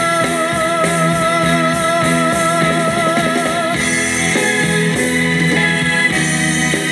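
Closing bars of a doo-wop ballad played by a band, led by guitar. A long held note with vibrato stops about four seconds in, over sustained chords.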